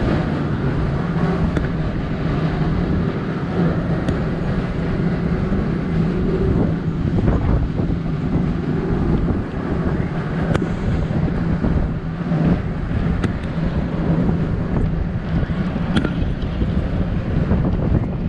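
Steady low rumble of running machinery with a faint steady hum, wind buffeting the microphone and a few light clicks.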